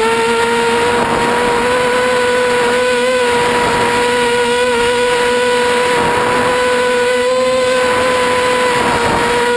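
Mini FPV quadcopter's brushless motors and propellers whining at a fairly steady pitch that wavers slightly with throttle, with wind rushing over the onboard camera's microphone.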